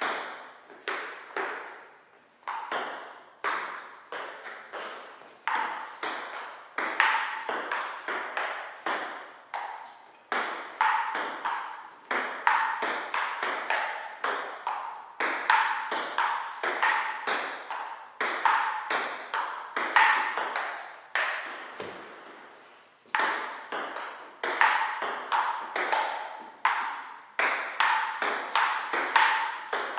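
Table tennis rally: the celluloid ball clicking back and forth off paddles and a Stiga indoor table, several sharp pocks a second with a short ring, pausing briefly about three quarters of the way through before play resumes.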